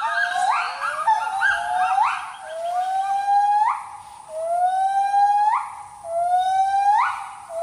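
Gibbons singing: a series of loud whooping calls, each note rising in pitch. Several notes overlap at first, then come long, slowly rising notes, each ending in a sharp upward sweep, about every one and a half seconds.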